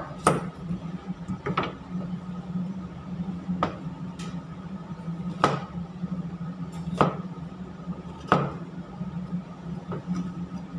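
A chef's knife chopping through carrot onto a plastic cutting board: single sharp chops, about seven of them, a second or two apart, over a steady low hum.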